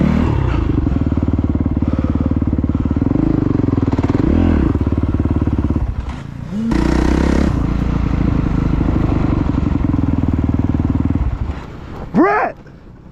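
Motocross dirt bike engine running hard under throttle on a track, with a short dip about six seconds in before it pulls again. Near the end the engine drops to a low idle, with one quick rev rising and falling.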